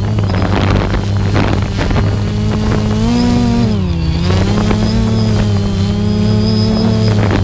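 Engine of a small aircraft carrying the camera, running steadily with a low hum; its pitch rises briefly about three seconds in, dips just after, then settles. Wind buffets the microphone.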